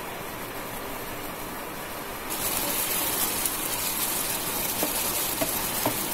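Thick curry sauce of jackfruit seeds and taro stolons sizzling and bubbling in a nonstick frying pan as it is cooked down, stirred with a spatula. The hiss gets louder about two seconds in, and a few light spatula clicks come near the end.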